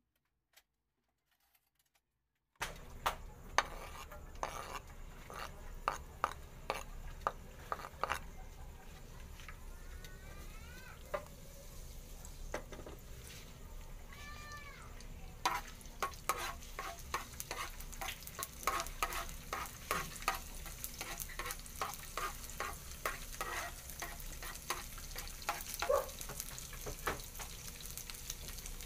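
Minced garlic frying in hot oil in a nonstick pan: a steady sizzle with crackling pops, starting abruptly about two and a half seconds in after near silence, the pops growing denser in the second half.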